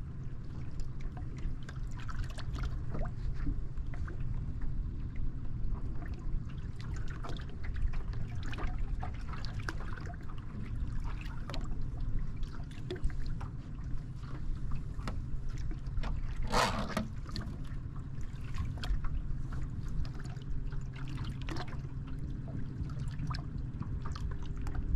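Small waves lapping and slapping against a fishing boat's hull in irregular little splashes over a steady low wind rumble, with one brief sharper scratchy sound about two-thirds of the way through.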